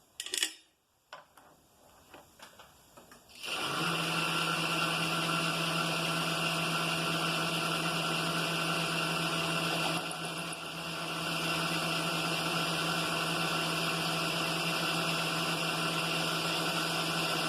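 A few knocks and clicks, then about three and a half seconds in a milling machine's spindle starts and runs steadily with a steady hum, turning a boring head and bar that is shaving the bore down in a slow, light finishing cut.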